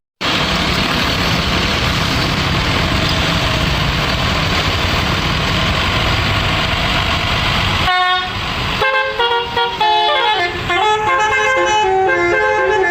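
A loud, steady rush of front-engined Mercedes-Benz bus engine and road noise for about eight seconds. Then, about eight seconds in, the bus's six-note telolet air horn sounds and plays a tune of stepped, changing notes.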